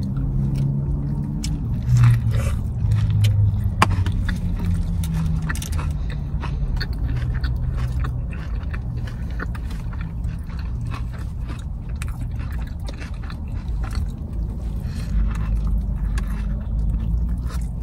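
Close-up chewing and biting of burger and fries, with many small wet clicks and crinkles, over a low steady rumble.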